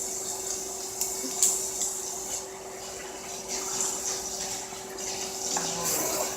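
Seafood boil being eaten by hand: crab and shrimp shells cracked and picked apart, with scattered clicks and wet rustling over a steady hum.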